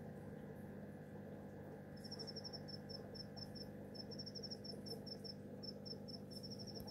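Faint steady hum of aquarium equipment. From about two seconds in, an insect chirps over it: short, high-pitched chirps in quick irregular runs.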